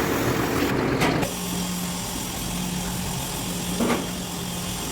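Terex backhoe loader's diesel engine running, louder for about the first second and then settling to a steady idle. A brief sharp sound about four seconds in.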